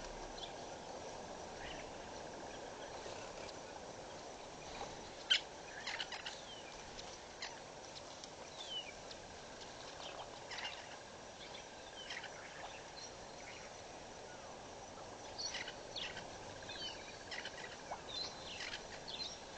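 Scattered short bird calls and chirps, some as quick falling notes, coming in clusters from about five seconds in and again near the end, over a faint steady outdoor hiss.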